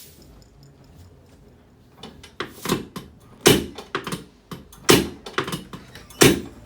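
Chiropractic spinal adjustment on a treatment table: a string of sharp knocks and clicks through the second half, with three much louder thuds about a second and a half apart.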